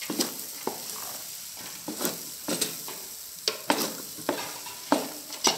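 Rice with sausage and carrots sizzling in a metal pot while being stirred, the utensil scraping and knocking against the pot about twice a second, irregularly.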